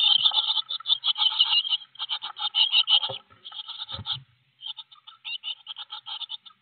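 Blue tit nestlings begging inside the nest box: a rapid, high-pitched run of short calls, many a second, that breaks off briefly about four seconds in and starts again. A couple of low thumps sound about three and four seconds in.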